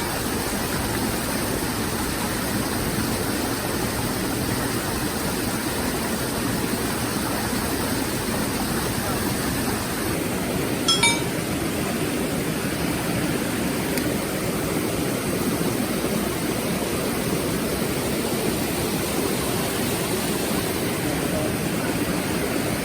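Mountain stream rushing over rocks, a steady even rush of water, with a brief run of small clicks about eleven seconds in.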